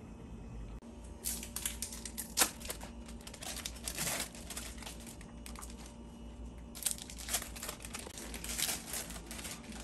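Thin plastic wrappers being peeled off individually wrapped cheese slices, crinkling and crackling. The crinkling comes in two bouts: one starting about a second in, and another in the second half.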